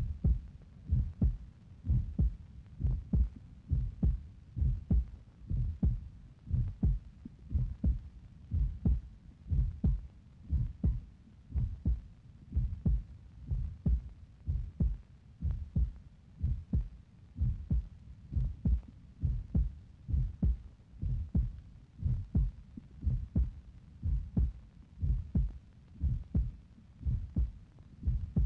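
Low thumps repeating steadily in an even, heartbeat-like pulse, with no other sound over them.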